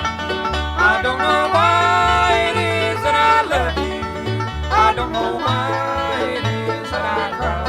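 Bluegrass band playing an instrumental break: banjo and guitar over a steady two-note bass line, with no singing.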